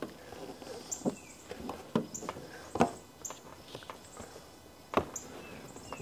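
Scattered knocks and clicks about a second apart from a hand screwdriver taking the screws out of a rooftop RV air conditioner shroud and from gloved hands and knees on the aluminium trailer roof.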